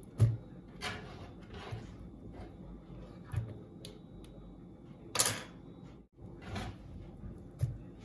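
Irregular knocks and taps from saba banana being cut into cubes and the pieces dropped into a mixing bowl. There are about seven in eight seconds, the loudest about five seconds in.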